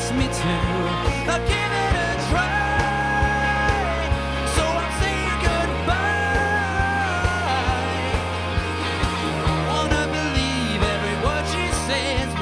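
A pop/rock band playing live: a steady drum beat over a sustained bass line, with long held melody notes.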